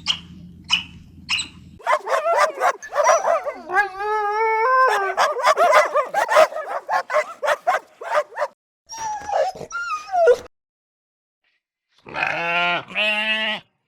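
Domestic animal calls in a run of separate short clips: repeated short high calls, a busy stretch of yelps and whines with one long wavering call, and two quavering bleat-like calls near the end.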